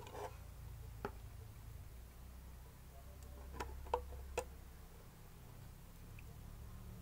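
A metal spoon clicking against a plastic jar and a ceramic bowl while pickle is spooned into the jar: one click about a second in, then three quick clicks around four seconds in, over a low steady hum.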